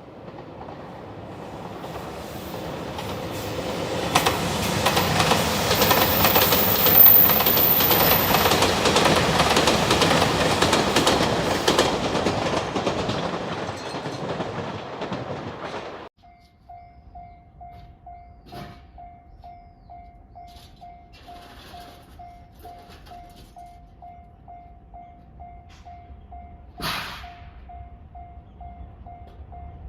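A JR Shikoku 2700 series diesel express train passing over a level crossing, its rumble and wheel noise building to a peak and fading. After a sudden cut, the crossing's electronic warning bell rings steadily at about two strikes a second, with one short loud burst near the end.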